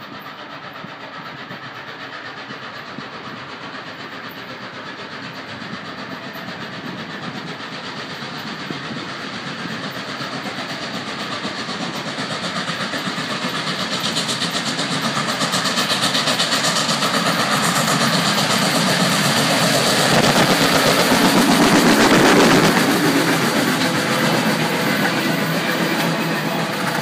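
Norfolk & Western 611, a Class J 4-8-4 steam locomotive, working hard upgrade with heavy, rapid exhaust beats. It grows steadily louder, is loudest about four-fifths of the way through, then eases off slightly.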